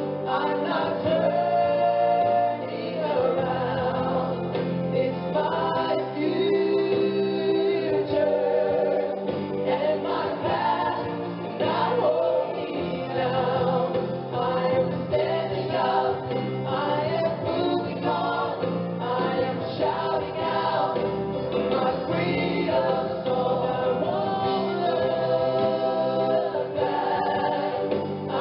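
Background music: a choir singing gospel-style with accompaniment.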